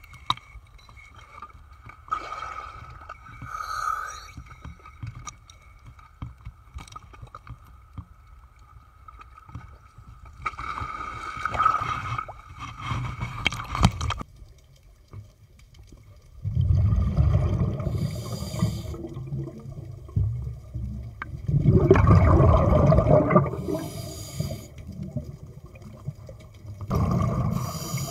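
Water sloshing against a camera at the surface, then, underwater, the deep burbling rush of a scuba diver's regulator exhaust bubbles, three exhalations about five seconds apart.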